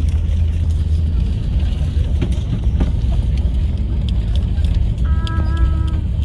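Airbus A380 airliner noise: a loud, steady low rumble during landing. A brief held tone sounds about five seconds in.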